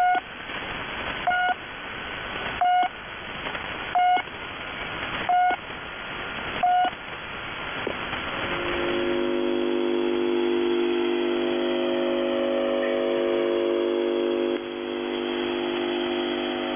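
Shortwave number station The Pip, received in upper sideband: six short, sharp beeps of one pitch about 1.4 s apart over radio static. After the last beep, a steady chord of several tones sets in about halfway through and holds, the signal that leads into a voice message.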